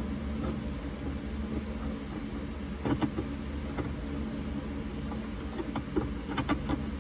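Small clicks and scrapes of a hand screwdriver and fingers working a screw blind among wiring: a cluster about three seconds in and several more near the end, over a steady low hum.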